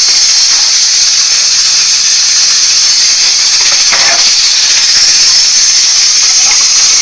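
A loud, steady, high-pitched hiss that does not change, with a brief faint voice about four seconds in.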